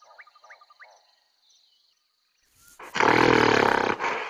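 Silverback mountain gorilla roaring: one loud, rough call that begins a little under three seconds in, after faint chirping and a moment of near silence.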